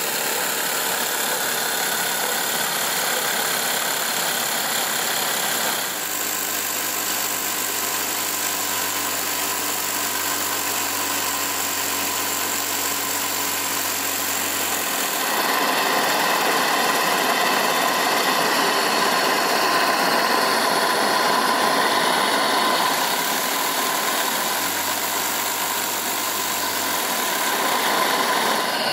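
NETCO twin-cylinder high-speed model marine steam engine running fast on very wet steam: a steady rush of exhaust and steam hiss, with steam leaking around the piston valve's untightened gland. Louder from about halfway through.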